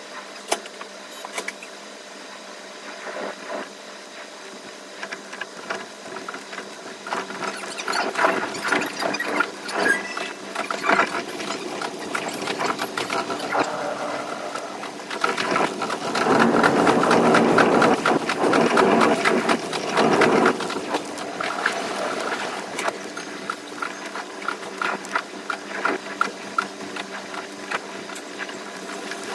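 Kuroshio limited express train running, heard from the front of the train: a fast patter of wheel clicks on the rails with a squeal over it, loudest about halfway through.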